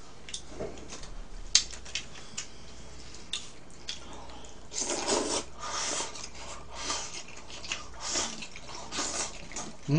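Jjajang noodles being slurped and eaten, a run of wet slurps from about five seconds in. A few sharp clicks of chopsticks on dishes come before.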